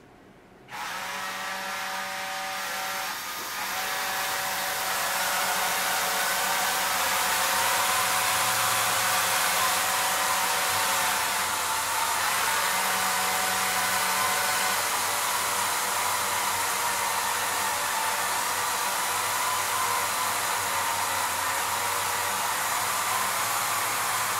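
Motors of a homemade six-axis motion-control camera gantry running as they drive the camera to its next position: a steady whirring hiss with faint whining tones. It starts suddenly about a second in and grows louder over the next few seconds.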